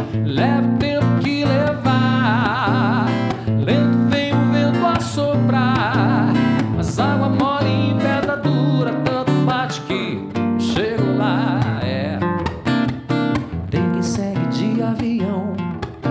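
Acoustic guitar fingerpicked through an instrumental break in a song, with a man's voice singing a few held, wavering notes, about two, six and eleven seconds in.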